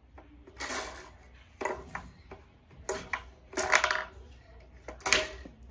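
Plastic clattering from a LEGO foosball table: the rods are jerked and spun and the ball knocks against the players and walls, in about five short rattling bursts.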